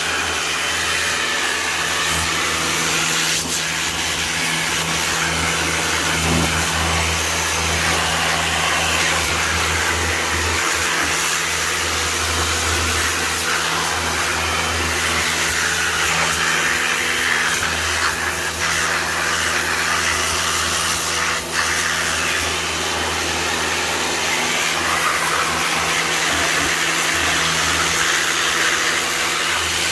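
Pressure washer running steadily, its lance spraying water onto a grimy car engine: a constant pump hum under the hiss of the water jet.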